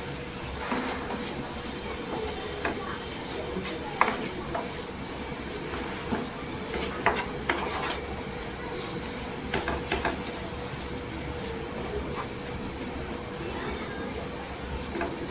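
Grated apple cooking in oil in a pan with a soft steady sizzle while it is stirred, with a few sharp knocks of the spoon against the pan.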